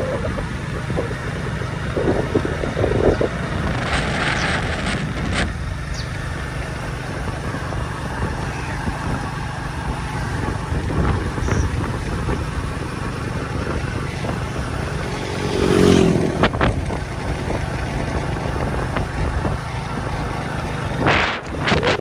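Vehicle engine running steadily on the move, with road and wind noise, and a few sharp knocks or rattles along the way.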